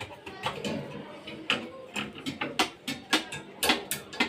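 Hand tools working on a refrigerator's metal parts: irregular sharp metal clicks and knocks, several a second, each ringing briefly.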